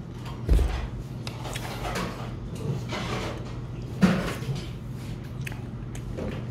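Eating sounds from a man sipping spicy noodle-soup broth off a metal spoon and chewing. There is a low thump about half a second in and a sharp slurp at about four seconds, over a steady low hum.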